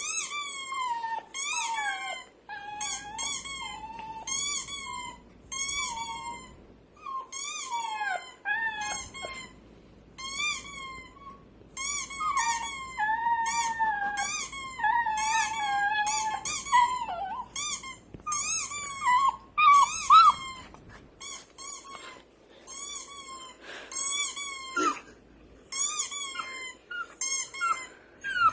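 Puppy whimpering in a long run of short, high, squeaky whines, one after another with brief gaps, including a few longer wavering whines in the middle.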